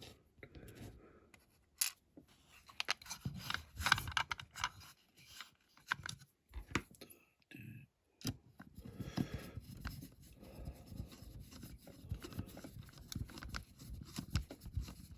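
Small screwdriver driving a screw into the base of a diecast model van, with irregular scraping and clicking as the screw turns and the model is handled.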